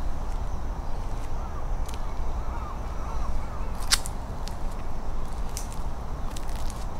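Boots stepping on stone paving scattered with dry leaves: a few sharp clicks and crunches, the loudest about four seconds in, over a steady low rumble.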